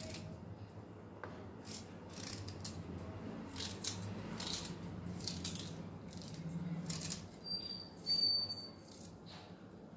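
Kitchen knife slicing peeled raw ginger into small pieces, with irregular short cuts and clicks of the blade meeting a wooden chopping board. Two short high tones sound near the end, the loudest moment.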